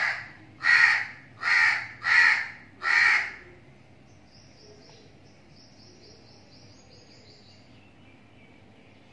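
A house crow cawing five times in quick succession, then falling silent; after it, a faint, rapid series of high chirps.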